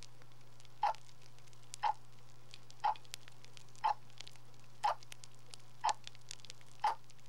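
Soft, evenly spaced ticks, one each second, with fainter small clicks between, over a steady low hum.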